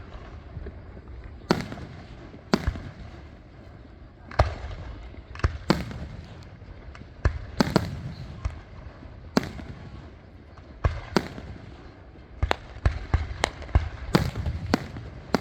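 Fireworks display: aerial shells bursting in an irregular series of sharp bangs, several trailing off in a low rumble, with a quicker run of bangs near the end.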